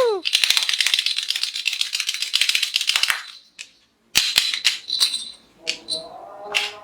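Plastic toy rattling with rapid clicks for about three seconds, stopping abruptly, followed after a short pause by a few separate plastic clicks and knocks.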